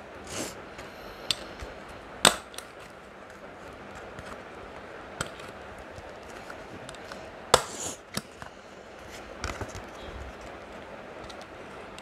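Small handheld stapler clicking shut on a folded paper plate's edge, several sharp separate clicks with pauses between; the two loudest fall a little over two seconds in and past the middle.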